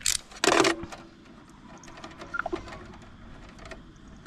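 Two short noisy rustles close to the microphone within the first second, then a few faint clicks and taps, from fibre drop cables, a hand tool and a rubber grommet being handled.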